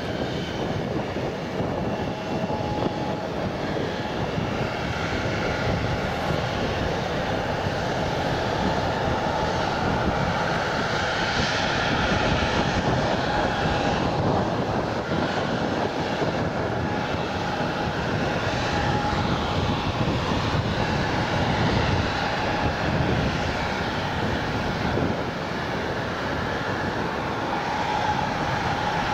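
Airbus A350-900 airliner's Rolls-Royce Trent XWB jet engines running steadily as it comes in to land, a continuous noise with a faint whine in it.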